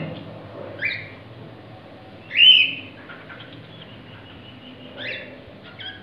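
Cockatiel giving short whistled calls: a brief one about a second in, a longer, louder one about two and a half seconds in, and two more short ones near the end.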